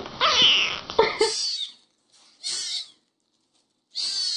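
Very young kittens meowing: a thin, high-pitched mew in the first second, then a second kitten giving three short mews with brief silences between.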